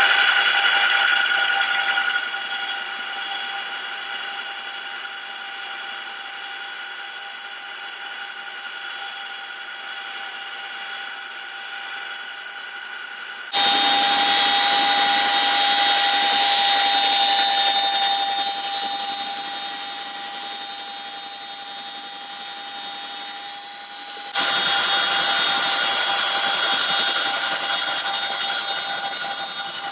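CH-47 Chinook helicopter's twin turboshaft engines running with a steady high turbine whine over rushing noise. It jumps abruptly louder twice, near the middle and about four-fifths through, and eases off after each jump.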